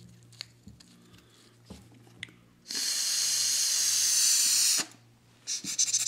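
Air blown through the narrow bore of a hollowed-out carrot pipe: a loud rushing hiss lasting about two seconds, then a shorter fluttering puff near the end. Before it come a few faint clicks of a metal probe scraping out the carrot.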